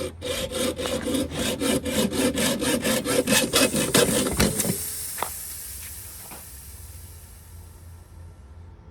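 A hand tool cutting into an old fridge's copper refrigerant line with quick rasping strokes, about four or five a second. The strokes stop about four and a half seconds in, leaving a faint high hiss that fades away: the little refrigerant left in the nearly empty R12 system escaping.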